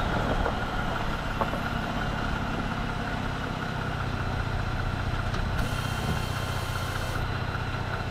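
Vehicle engine running with a steady, even low drone.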